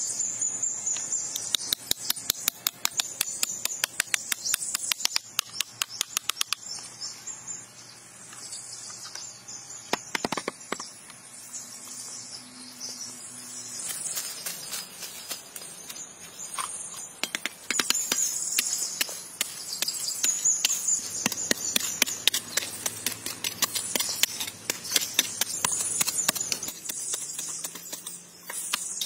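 Insects chirring steadily in a high band, with quick runs of sharp clicks and taps from hand work with wood and digging tools over the first several seconds and again through the second half.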